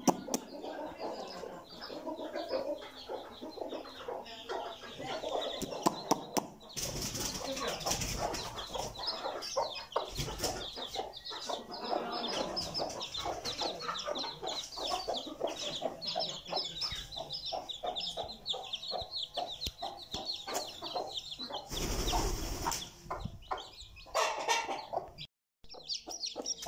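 A hen clucking among her newly hatched chicks, whose many short high peeps run on throughout. Two brief loud rushes of noise break in, about seven seconds in and again around twenty-two seconds, and the sound cuts out for a moment near the end.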